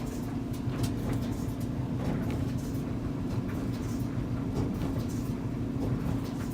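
Whirlpool 29-inch dryer tumbling a full load: a steady running hum and rumble, broken by repeated clunks, about one for every turn of the drum. The clunk comes from the warped, out-of-round drum knocking against the frame as it rotates.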